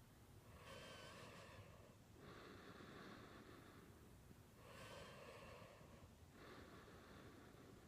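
Faint snoring: slow, even breaths of about one and a half to two seconds each, two full in-and-out cycles. Every other breath carries a faint thin whistle.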